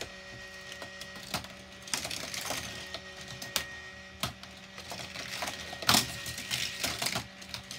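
Battery-powered motor of a Hot Wheels Volcano Escape playset running with a steady hum, while its plastic lifter mechanism and die-cast toy cars click and clack irregularly on the plastic track, the sharpest clack about six seconds in.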